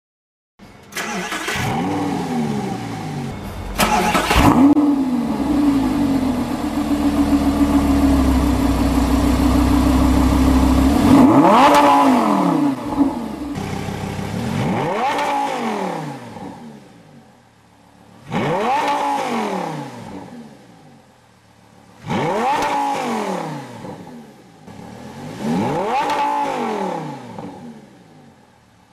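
Lamborghini Gallardo LP550-2's 5.2-litre V10 through its stock exhaust, starting up and flaring, then running steadily at a raised speed for several seconds. It is then revved five times in quick blips, each rising sharply and falling back to idle.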